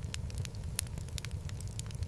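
Wood fire in a fireplace crackling, with irregular sharp pops over a low, steady rumble of the flames.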